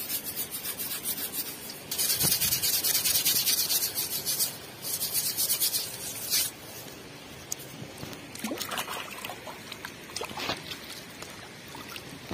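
Steel-wool dish scrubber rubbing quickly back and forth over an eel's slimy skin, scouring off the slime until the skin turns white. The strokes are loudest from about two to six and a half seconds in, then give way to quieter scraping and trickling water.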